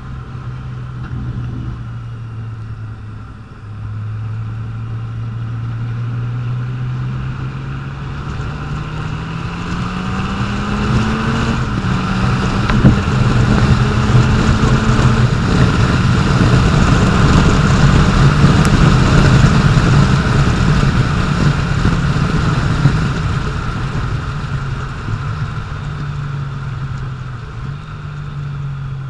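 Honda Valkyrie's flat-six engine under way, its note climbing as the bike accelerates, dropping at a gear change about twelve seconds in, then holding at speed and easing off near the end. Wind rushes over the microphone, loudest at the higher speeds in the middle.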